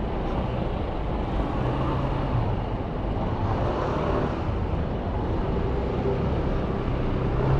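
Street traffic: motor vehicles running and passing over a steady city background noise, with engine hums rising and fading as vehicles go by.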